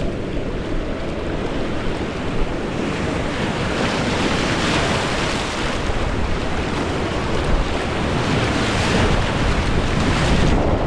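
Rushing whitewater of a rapid, a dense steady hiss, with low buffeting rumble on the microphone.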